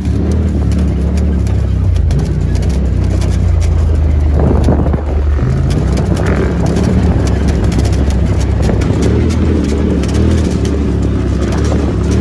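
Polaris RZR side-by-side's engine running steadily under way on a dirt trail, heard from inside the open cab, with many short clicks and rattles over it. About five seconds in the engine note dips briefly and then picks up again.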